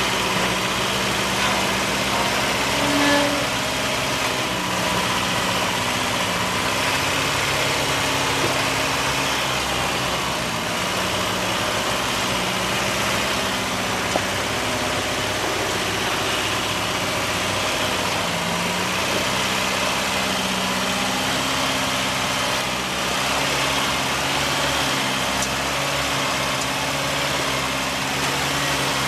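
Off-road vehicle's engine running steadily at low revs, its pitch shifting a little now and then.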